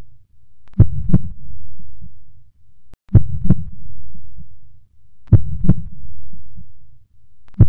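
Slow heartbeat sound effect: a lub-dub double thump about every two seconds, each followed by a low rumble that swells and fades away.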